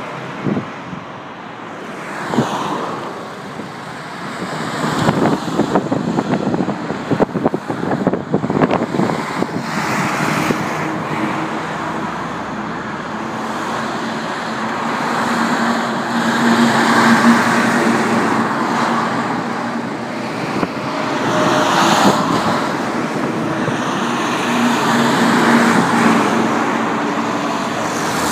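Road traffic: a convoy of army trucks, Ural-4320 and KamAZ six-wheel-drive, driving past with their diesel engines running, mixed with cars passing. A steady engine drone grows stronger about halfway through as the trucks come close.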